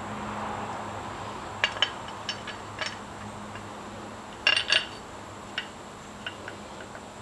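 Small metal parts and tools clinking and clicking as they are handled, in scattered single knocks with a louder double clink about halfway through.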